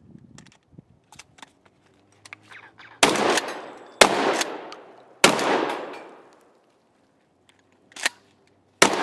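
Light clicks and rattles of a shotgun being handled, then four loud shotgun shots, the first three about a second apart, each with a long echoing tail, and a shorter sharp crack a moment before the last shot.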